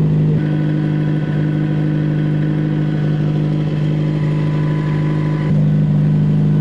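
Historic rally car's engine idling steadily at close range. Its deep low end drops away about half a second in and returns near the end.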